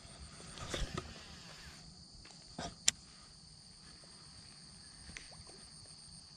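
Steady high chirring of insects, with a brief rustle about a second in and a short thud and a sharp click near three seconds.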